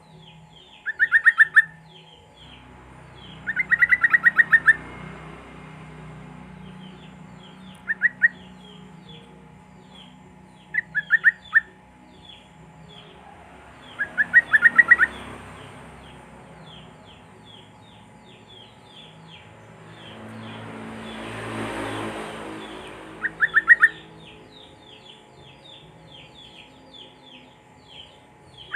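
Bulbuls singing: short bursts of rapid repeated notes every few seconds over a steady run of quick, high, downslurred chirps, a yellow-vented bulbul lure track of the kind played to prompt a caged bird to sing. A rush of noise swells and fades about twenty seconds in.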